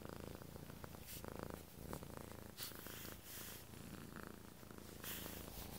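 Domestic cat purring steadily close to the microphone, with a few brief rustles.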